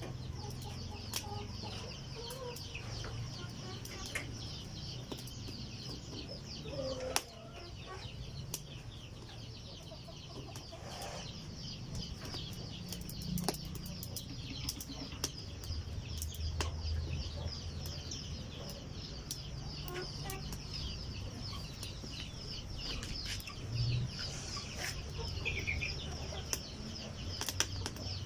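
Wood cooking fire crackling, with scattered sharp snaps from burning firewood and chickens clucking now and then.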